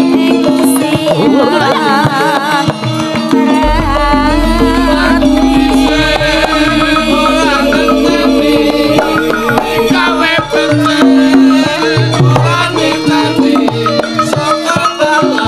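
Javanese gamelan music with kendang drumming and a sinden's wavering, ornamented female voice singing over the held metallophone tones. A deep low note enters about four seconds in and holds for several seconds.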